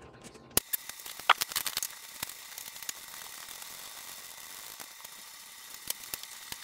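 A few light metallic clicks and scrapes in the first two seconds as a screwdriver pries at a corroded A/C line fitting on the condenser, then isolated clicks over a steady hiss.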